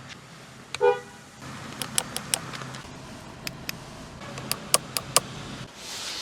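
Cadillac CT6 sounds: a short horn-like beep about a second in, then a string of sharp clicks over a low steady hum.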